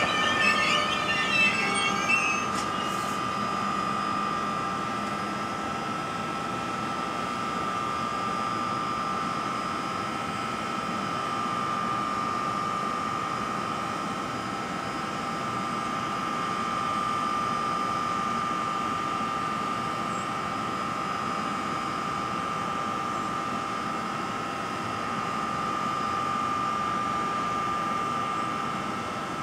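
NJ Transit ALP-46A electric locomotive standing at the platform with its auxiliaries running: a steady high whine over an even fan-like hiss. A brief squeal of brakes in the first two seconds as the train comes to rest.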